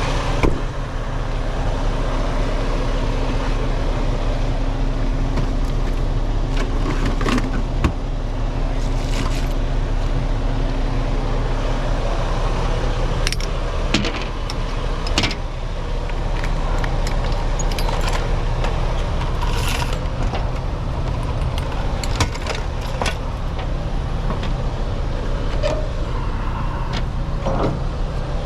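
Semi truck's diesel engine running slowly in the cab during a tight reverse manoeuvre, a steady low rumble. Scattered clicks and rattles sound over it.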